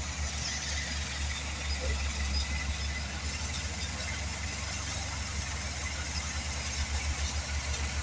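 Heavy machine's engine running steadily at idle, with an even low pulsing throb.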